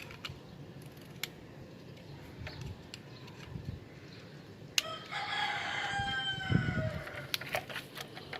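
A rooster crows once, a single long call of about two and a half seconds that sags in pitch at the end, about five seconds in. A few sharp clicks are heard around it.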